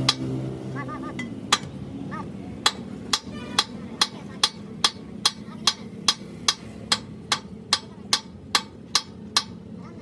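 Hammer striking metal in a steady rhythm, about two to three blows a second, some blows leaving a short metallic ring.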